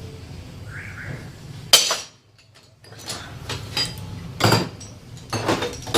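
Metal hand tools clinking and knocking against engine parts during timing chain work, at irregular intervals. A sharp, loud metallic clack comes just under two seconds in, followed by a brief moment of quiet.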